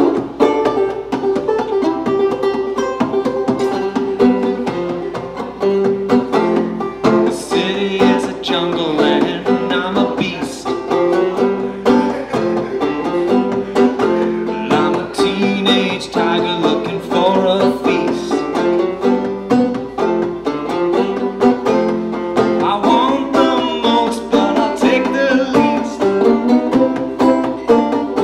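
Five-string banjo played clawhammer style: a solo instrumental passage of quick, driving plucked notes and brushed strokes, with a few brighter stretches along the way.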